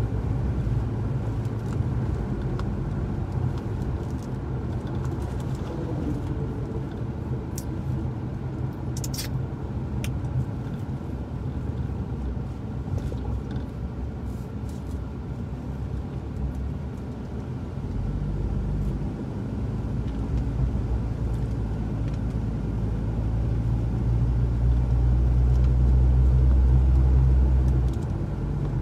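Car driving along a road, heard from inside the cabin: a steady low engine and tyre rumble. The rumble grows louder over the second half and drops off sharply just before the end.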